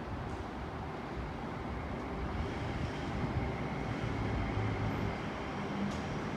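City street ambience: a steady rumble of road traffic with no vehicle close by.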